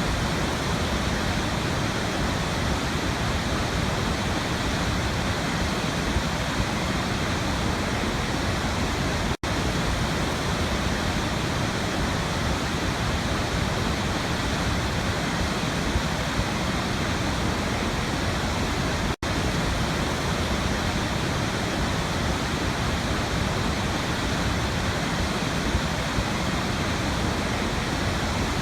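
Waterfall: steady rushing of falling water. It cuts out for an instant twice, about ten seconds apart.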